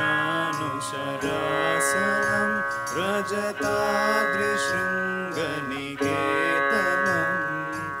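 Devotional music: a male voice sings several sliding, ornamented phrases over a steady held drone.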